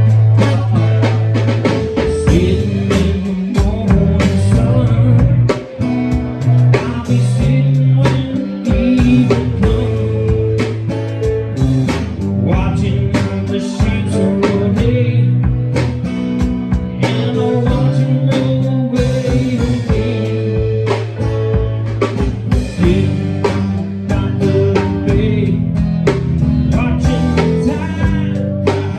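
Band music with guitar, drums and singing, a steady bass line under a regular beat.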